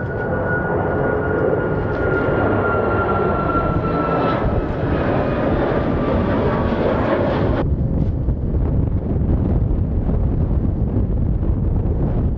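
Jet airliner's engines running with a whining tone that slowly falls in pitch over a rumble as it passes. A little past halfway the sound cuts off suddenly, leaving a low rumble of wind buffeting the microphone.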